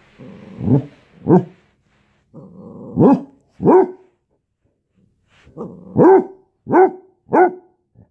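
Basset hound puppy barking: seven short, arched barks in three bursts, each burst led in by a low growling rumble.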